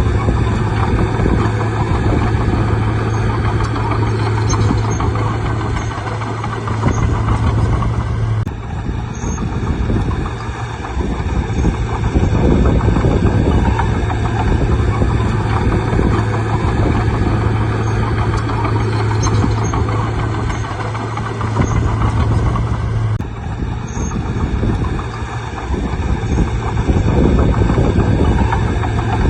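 Bulldozer's diesel engine running steadily while working. Its strong low hum drops away twice for a few seconds and then comes back.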